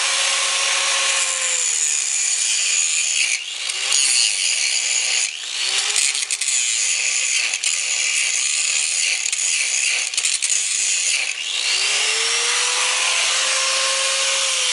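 Corded angle grinder with an abrasive disc grinding metal: a steady motor whine under a harsh, sparking hiss, the pitch sagging and recovering each time the disc bites. Near the end the disc comes off the work and the grinder whines freely.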